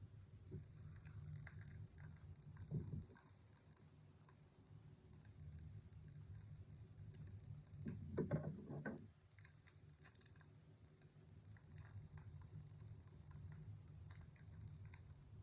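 Faint handling of 2022 Panini Chronicles trading cards and packs: light clicks and taps as cards are slid and flipped, with a louder rustle about three seconds in and another, longer one around eight to nine seconds.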